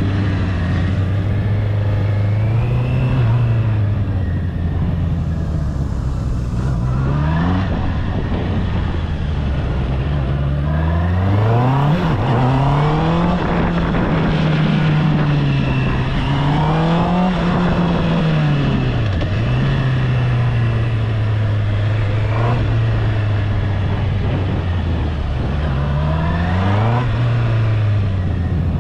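Honda CB650R's inline-four engine on the move, holding a low steady note at first, then revving up sharply about a third of the way in and rising and falling with the throttle for several seconds. It settles back to a low note and revs up briefly once more near the end.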